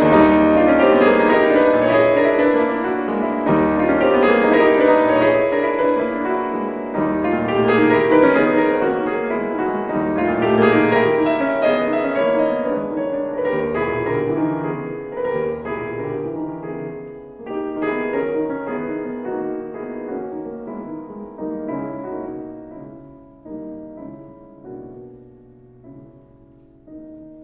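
Solo piano music, slowly fading out toward the end.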